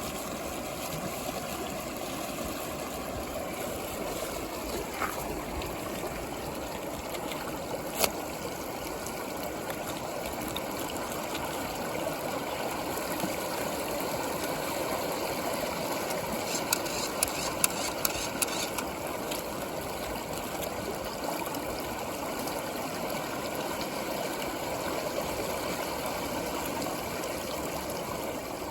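Water whirling in a vortex inside a plastic tube with big bubbles, a steady running, trickling wash. A sharp click about eight seconds in and a short run of clicks a little past halfway.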